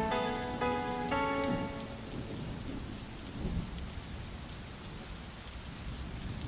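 The last sustained notes of the song fade out over the first two seconds, leaving the steady hiss of falling rain.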